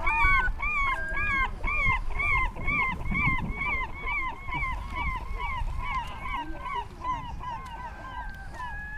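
Gull calling a long, even run of arching 'kyow' notes, about three a second, growing a little fainter toward the end, over a low rumble.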